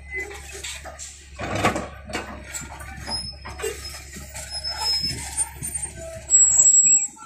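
L&T-Komatsu hydraulic excavator working: its diesel engine runs steadily under load while the bucket digs into soil, with a loud crunching scrape about a second and a half in and scattered knocks of earth and stones. A louder rumble comes near the end.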